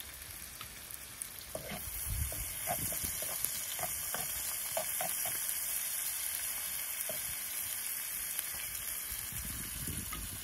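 Beaten eggs frying in a pan: a steady sizzle that grows louder about two seconds in, with occasional light clicks and scrapes.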